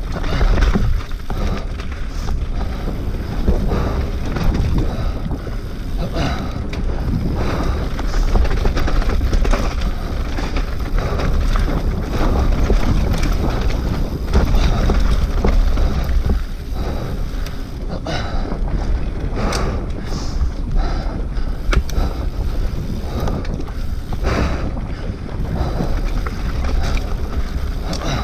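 Wind buffeting the camera's microphone with a heavy low rumble, over the constant rattle of an enduro mountain bike riding fast down a rocky dirt singletrack. Tyres crunch on loose stones and the bike knocks sharply over rocks and roots many times.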